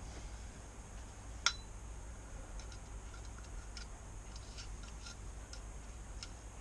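Small screwdriver picking at the steel seal retaining ring inside a motorcycle fork leg, metal on metal: one sharp click about a second and a half in, then light scattered ticks as the tip works under the ring.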